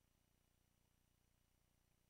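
Near silence, with no audible sound.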